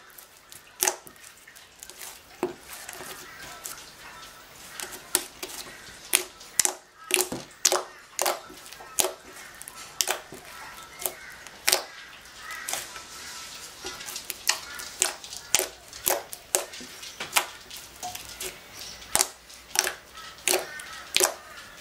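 Blue slime being kneaded, folded and pressed by hand, trapped air bursting in sharp pops and squelching clicks, irregularly about one to two a second.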